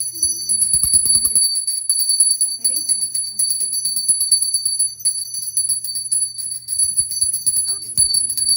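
Small brass puja hand bell rung rapidly and continuously, a steady high ringing made of quick strikes, as is done during the aarti lamp offering.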